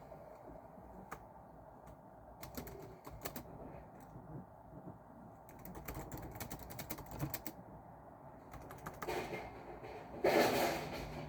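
Typing on a computer keyboard in short spurts of key clicks with pauses between them. Near the end a short, louder rush of noise stands out over the typing.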